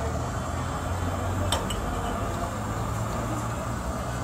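Glass tumblers clinking twice in quick succession about a second and a half in as they are washed by hand in a pot of water. A steady low rumble runs underneath.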